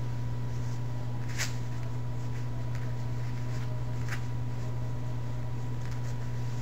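A steady low hum, with a couple of faint soft brushing taps as a terry-cloth hand towel is rolled against a tabletop by hand.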